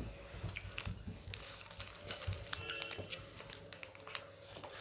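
Faint rustling and small clicks of a folded paper chit being picked out and unfolded by hand, with a few low handling bumps near the start.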